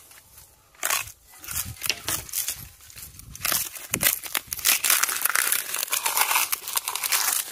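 Close-up eating sounds: crackly chewing and crumpling as a thin flatbread filled with biryani rice is bitten and munched. Scattered at first, then louder and denser from about halfway through.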